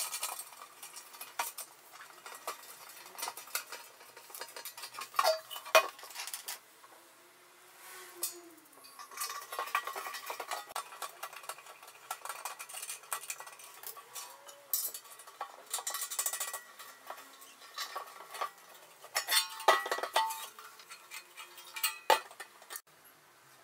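Stainless steel containers and a threaded rod being handled and fitted together: irregular metallic clinks, taps and scrapes, with two louder clanks that ring briefly, about six seconds in and again around twenty.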